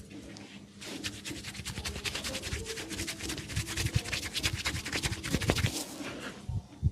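Hands rubbing and scratching vigorously through oiled hair on the scalp: a fast, dense scratchy rustle that starts about a second in and stops near six seconds. A single low thump comes just before the end.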